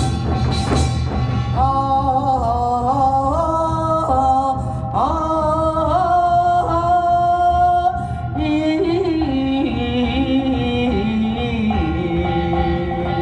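Korean fusion folk music: a few drum strikes in the first second, then a sung melody with sliding pitches over a steady low accompaniment.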